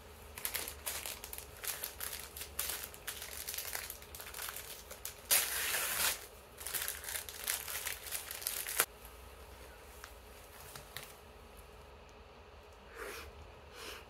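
Plastic film wrapper of a packaged sandwich crinkling and tearing as it is opened by hand, loudest about five seconds in. The crinkling stops about nine seconds in.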